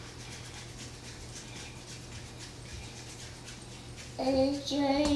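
A quiet stretch with faint small clicks. About four seconds in, a child starts singing, holding long steady notes.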